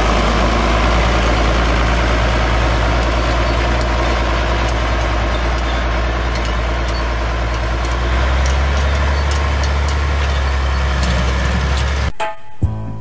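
International Harvester tractor engine running steadily while it pulls and drives a New Holland small square baler. About 12 seconds in, the machinery sound cuts off abruptly and music takes over.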